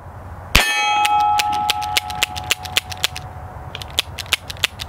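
A .380 ACP round fires from a 9mm revolver, held in place by a moon clip, about half a second in. A steel target rings clearly after the hit and fades over about three seconds. Light, evenly spaced ticks run through the rest.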